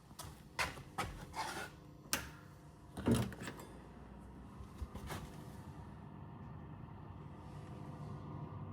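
Hard parts being handled at a workbench: a run of separate knocks and clicks, the loudest about three seconds in, then only a faint steady hum.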